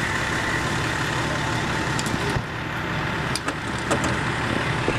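Fire department pickup truck's engine idling: a steady low rumble with a faint steady whine above it, and a few sharp clicks in the middle.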